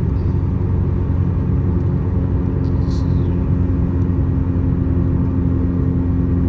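Audi S3's turbocharged four-cylinder engine running at a steady pitch while cruising, heard inside the cabin with road noise; no acceleration pull yet.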